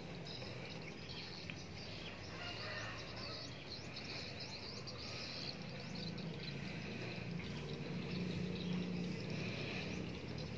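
Small birds chirping and twittering repeatedly in the background, with a steady low hum underneath that grows slightly louder about halfway through.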